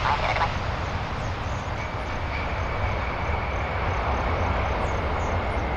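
Boeing 747's four jet engines running with a steady rushing noise and low rumble as the airliner rolls out along the runway just after touchdown. A faint high whine joins about two seconds in.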